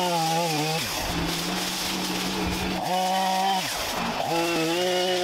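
Chainsaw cutting through bamboo stalks, running at high revs. Its pitch dips and climbs back a couple of times as it takes and leaves the cut.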